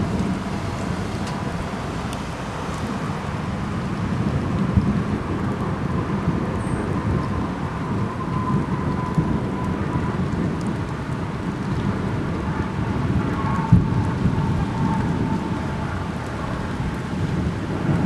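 Thunderstorm: steady heavy rain and wind noise with a low rumble of thunder underneath. A faint wavering tone comes and goes in the middle, and there is one sharp click near the end.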